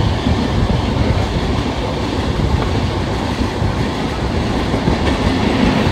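Passenger express train running along the track, a steady loud rumble of wheels on rail heard from on board a coach.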